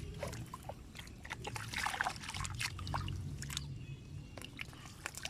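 Water sloshing and splashing in irregular bursts, heaviest a couple of seconds in.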